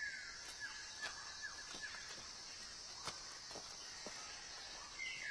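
Faint animal calls over a steady hiss: a high falling whine at the start, then a quick run of short falling chirps, with a few soft clicks, and another falling whine near the end.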